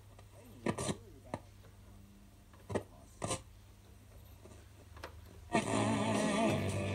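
Sharp GF-7500 boombox radio being tuned by its dial: a few brief snatches of station sound, then a station playing music comes in about five and a half seconds in, over a low steady hum.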